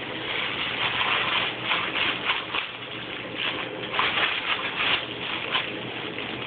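Crinkle book being handled: irregular bursts of crinkly rustling, some louder and some softer, coming and going every second or so.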